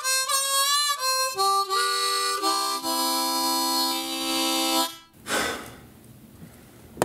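Blues harmonica playing a short run of notes, then a chord held for about two seconds that cuts off about five seconds in. A brief hiss follows.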